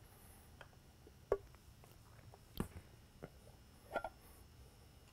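Small flat-tip screwdriver prying at the rim of a polycarbonate spotlight lens, giving faint scattered clicks and a couple of short creaks as the pressure-sealed lens and its gasket are worked loose from the cast aluminium housing.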